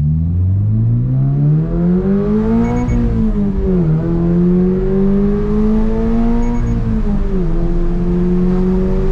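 Subaru BRZ/Toyota GR86 flat-four engine through a new HKS Hi-Power single-exit racing catback exhaust, accelerating under load. The pitch climbs, drops at an upshift about four seconds in, climbs again, drops at a second upshift about seven and a half seconds in, then holds steady at cruise.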